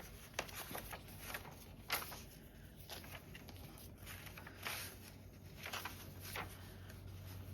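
Paper and card being handled: soft rustles and light taps as journal cards and paper pockets are picked up and sorted, with a few sharper taps about two seconds in and again near five seconds.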